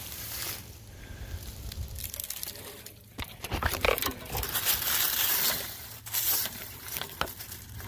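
Footsteps and brushing through dry fallen leaves and brittle twigs: irregular crunching, rustling and crackling, busiest in the second half.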